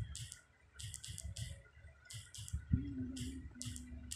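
Siamese mother cat licking her newborn kitten: a series of short wet rasping licks, about two or three a second, with soft thuds as she works over it. Near the end a brief low cry rises out of the licking and holds for over a second.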